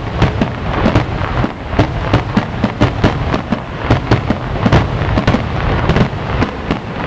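Fireworks finale: rapid sharp bangs and crackling, several a second, over a continuous low rumble of shells bursting.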